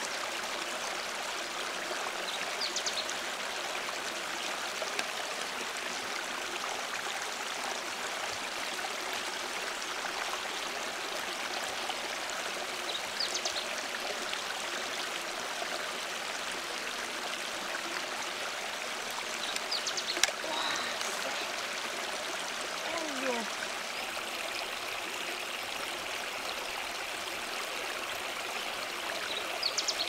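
Shallow stream running steadily over rocks, with a few short clicks and scrapes from a large freshwater mussel shell being worked open by hand.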